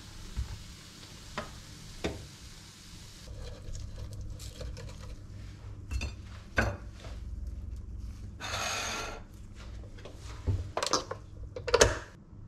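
Kitchen handling: a spatula stirring and scraping in a nonstick frying pan, with dishes and utensils clinking and knocking. A hiss lasting about a second comes a little past halfway, and a quick run of knocks near the end.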